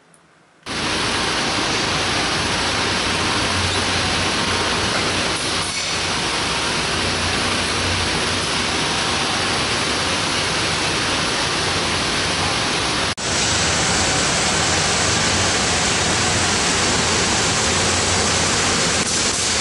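Loud, steady rushing noise with no rhythm or pitch, starting abruptly about a second in and cutting out for an instant about two-thirds of the way through.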